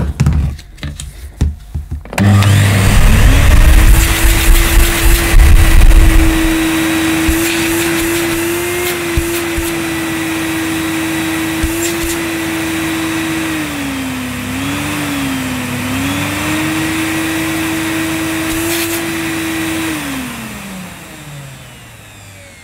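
1987 Electrolux Elite canister vacuum cleaner with its hose attached, switched on about two seconds in after some clicks of handling: its motor runs with a steady whine and a heavy low rumble at first, dips in pitch twice briefly, then is switched off near the end and winds down with a falling pitch. The owner suspects the odd growl in its sound comes from the bag's rubber seal vibrating.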